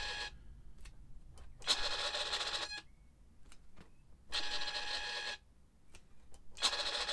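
Model-aircraft servo whining as it drives a lift spoiler open and closed through its pushrod linkage: a steady whine in runs of about a second each, the end of one run at the start and then three more, about two seconds apart, with faint ticks in the quiet gaps.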